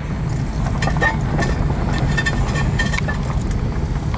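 A car driving, heard from inside: a steady low engine and road rumble, with a few faint small ticks in the middle.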